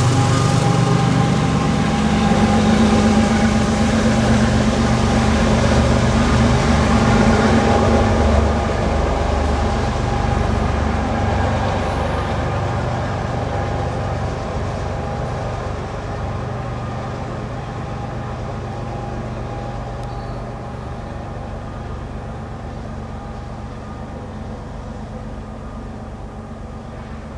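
CSX freight train passing and rolling away: a diesel locomotive's engine drone and the rumble of the cars, loudest over the first eight seconds, then fading steadily.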